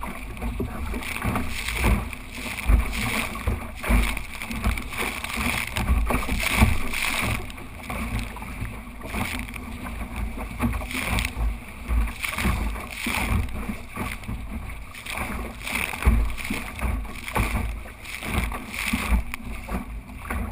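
A small sailing dinghy under way: water rushing and splashing along the hull, with wind gusting over the microphone.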